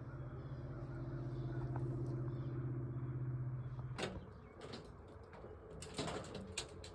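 A steady low engine hum that cuts off abruptly about four seconds in, followed by a few sharp clicks and knocks.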